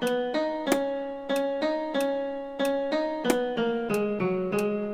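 A piano-like keyboard tone playing a melody one note at a time, about three notes a second, each struck and fading. The line steps downward near the end into a longer held note, closing the tune's final phrase.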